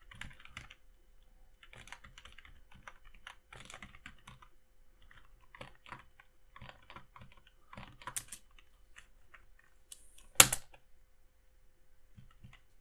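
Typing on a computer keyboard: an irregular run of quick keystrokes, with one much louder key strike about ten seconds in.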